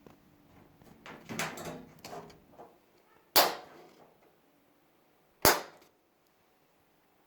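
A short rattling clatter, then two sharp bangs about two seconds apart, each ringing out briefly.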